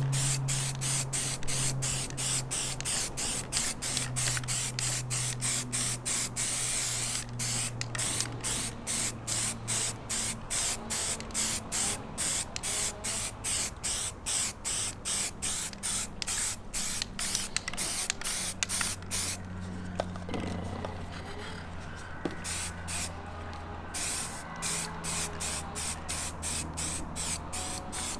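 Aerosol spray can of grey primer hissing in short, rapid bursts, about three a second, as a second coat goes onto plastic bumper grilles. The bursts stop for several seconds past the middle, then start again.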